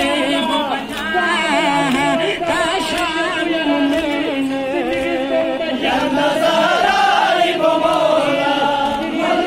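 Large crowd of men chanting a Shia mourning lament (nauha) together in unison, with slaps of hands beating their chests.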